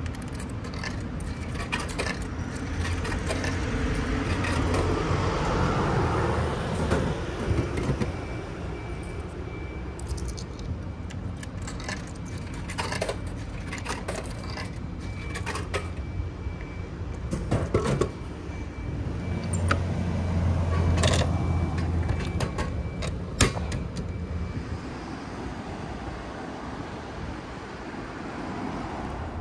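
Coins dropped one at a time into a vending machine's coin slot, clinking through the coin mechanism, with a few louder knocks from the machine. A low hum rises and falls underneath twice.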